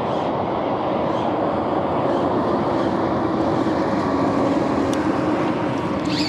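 Steady vehicle rumble with a faint humming tone running through it.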